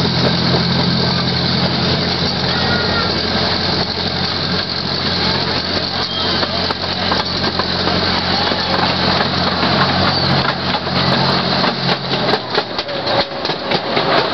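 Miniature ride-on train running along its track: a steady low hum and continuous rattle of the open passenger cars. About twelve seconds in the hum drops away and quick clicks and clatter of the wheels on the rails take over.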